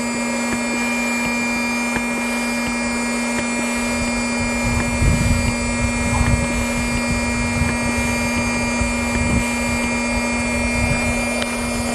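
Steady hum of a small electric air pump for inflatables. From about five seconds in, irregular low puffing strokes are added, which fit a hand or foot pump topping up the boat's air chamber.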